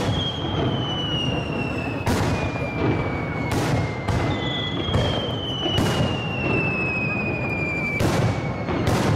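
Aerial firework shells bursting in a barrage, about six sharp booms a second or so apart. Long high whistling tones slide slowly downward between the bursts.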